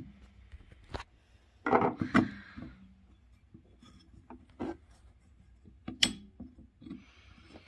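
Hands working the shifter drum and gears in a Harley-Davidson four-speed hand-shift transmission lid to line up the angled gear: rubbing and scraping of the metal parts with a few separate sharp metal clicks, the sharpest about six seconds in.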